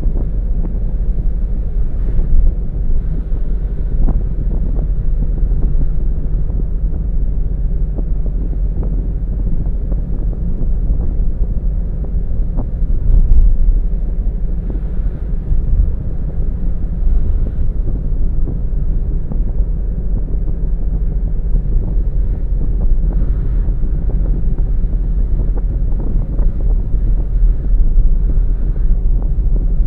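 A car driving at steady speed: a continuous low rumble of engine and road noise, with a few faint knocks from bumps in the road.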